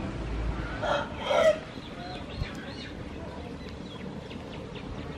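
A chicken calls about a second into the clip: a loud squawk in two quick parts. Faint high chirps follow.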